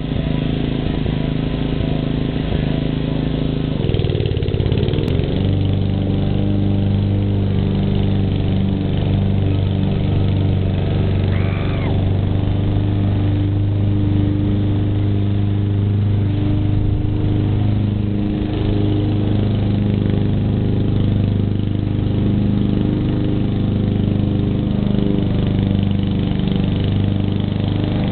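Self-propelled lawn mower engine running steadily; its pitch wavers and dips about four seconds in, then holds an even note.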